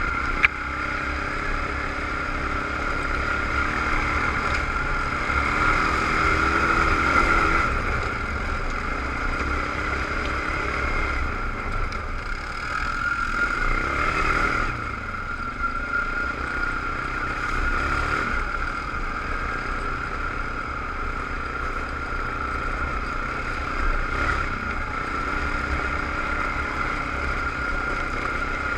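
ATV engine running under way on a dirt trail, its pitch rising and easing several times with the throttle, over a steady high whine and a low rumble. A single sharp knock about half a second in.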